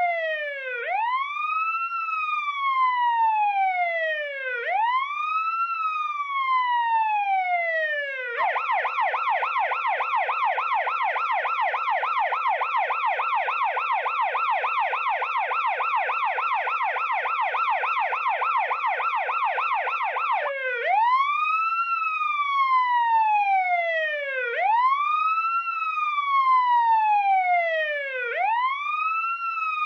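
Police siren sounding a wail, a slow rise and fall in pitch about every four seconds. About eight seconds in it switches to a fast yelp, and about twenty seconds in it switches back to the wail.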